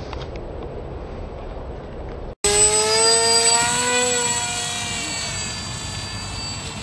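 Wind rushing over the microphone, then, after an abrupt cut about two and a half seconds in, the high whine of a small RC plane's brushless electric motor and propeller under power. The whine is loudest at first, wavers slightly in pitch and fades as the plane climbs away.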